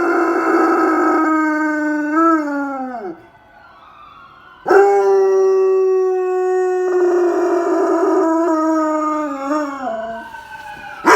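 German shepherd howling: two long, steady howls, each ending in a falling, wavering pitch, with a short pause between them about three seconds in. A new howl starts right at the end.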